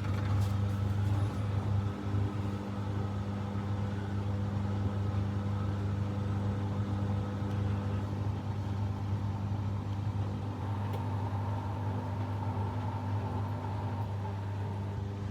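Washing machine running: a steady hum with several steady tones, and a higher tone joins about ten seconds in.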